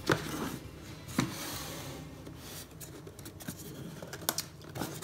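Cardboard product boxes handled on a wooden worktop: a knock at the start and another about a second in as the boxes are set down, then cardboard sliding and rubbing, with small clicks and taps near the end as the flap of one box is pulled open.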